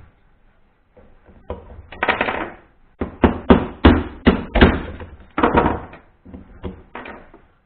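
Hammer blows on the end of a metal wheel spindle used as a drift through the hub of an electric scooter wheel, driving the bottom wheel bearing out. A couple of single knocks come first, then a quick run of blows at about four a second, until the bearing gives near the end.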